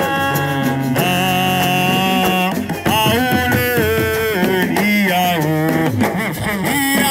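Music with a singer: a solo voice sings long, gliding, ornamented notes over a steady accompaniment.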